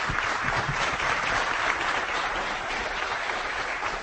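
Audience applauding: many people clapping together at a steady level.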